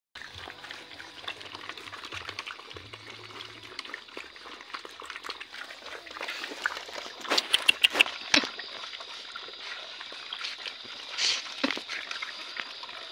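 Puppies eating together from a shared tile of food, a steady wet chewing and lapping made of many small clicks and smacks. About seven seconds in, a quick run of several loud, sharp sounds stands out above the eating.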